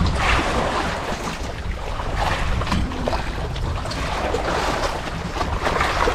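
Wind rumbling on the microphone over the noise of the sea around a small fishing boat, steady, with small scattered knocks.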